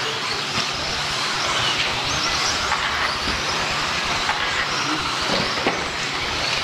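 Electric 1/10-scale 2WD racing buggies running on a dirt track: the high whine of their brushless motors and gears rises and falls as they accelerate and brake, over a steady hiss of tyres on dirt.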